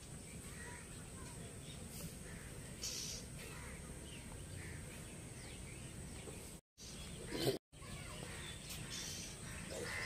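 Outdoor park ambience with scattered short bird calls over a steady low background hum. A louder call comes about seven and a half seconds in, and the sound cuts out completely for a moment just before and just after it.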